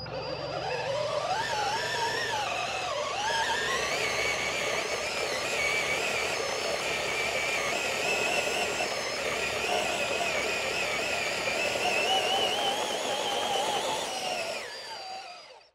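DeWalt FlexVolt cordless drill driving a homemade crawl space caddy over grass, its motor whine rising and falling in pitch as the speed changes. The sound fades out near the end.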